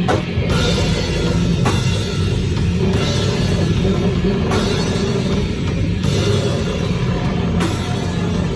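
Slow, heavy doom/sludge metal: a thick distorted low guitar and bass drone with a drum kit, a cymbal crash about every second and a half. The drums and crashes come in right at the start.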